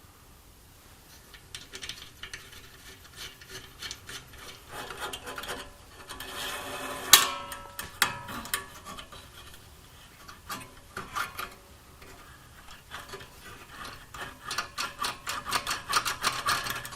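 Hand work on small metal parts: irregular scraping, rubbing and light clicks, with one sharp metallic clink about seven seconds in and a quicker run of clicks near the end.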